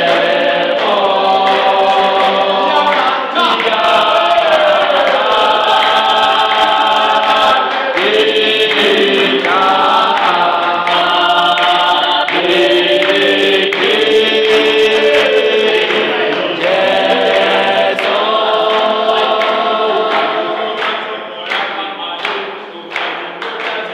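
Mixed choir of young men's and women's voices singing a gospel song in harmony, unaccompanied, with hand clapping. Near the end the singing thins and the claps stand out more.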